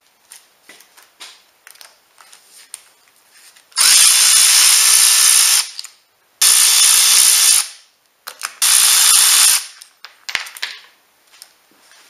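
Cordless electric ratchet running in three bursts of one to two seconds each, backing out the ignition coil bolts on the valve cover of a Ford Duratec 2.3 engine. Small clicks and taps of handling come before and after the bursts.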